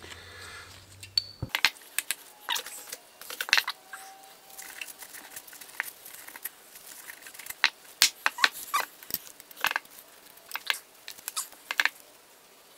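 Irregular clicks and light taps of small metal parts as a tractor carburetor is taken apart by hand on a paper-towel-covered bench.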